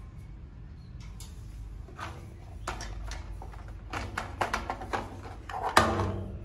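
Plastic toy dump truck knocking and clattering against a steel diamond-plate stair tread as it is handled and set back on its wheels. A run of clicks begins about two seconds in, and the loudest knock comes near the end with a brief ring.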